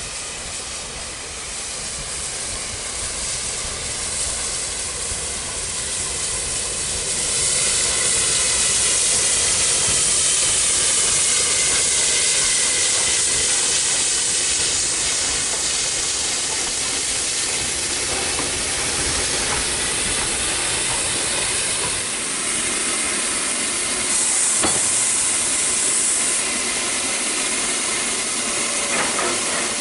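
LNER Peppercorn Class A1 steam locomotive 60163 Tornado letting off steam in a steady hiss, which grows louder about seven seconds in.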